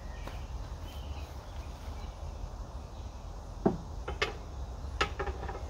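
A few light clicks and knocks, about three and a half to five and a half seconds in, as an outboard lower unit is handled and raised into place, over a steady low background rumble.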